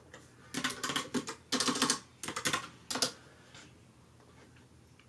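Typing on a computer keyboard with round keycaps: several quick runs of clicking keystrokes over about two and a half seconds, then it stops.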